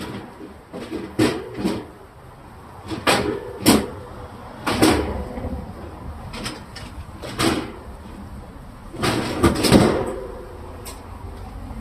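Irregular knocks and clatter of refrigerator parts and items being handled and set back into a fridge, a dozen or so sharp strikes in clusters, the loudest run near the end.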